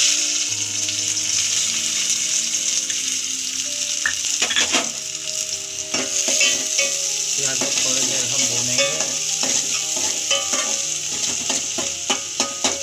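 Freshly added sliced onions sizzling steadily in hot oil in an aluminium pot. From about four seconds in, a spatula scrapes and clicks against the pot as the onions are stirred.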